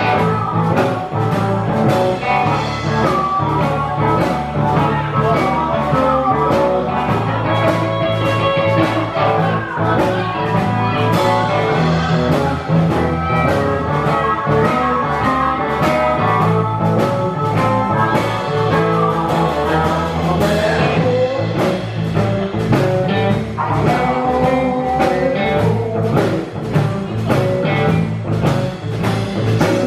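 Live band playing a blues-rock song, with electric guitar over a steady drumbeat.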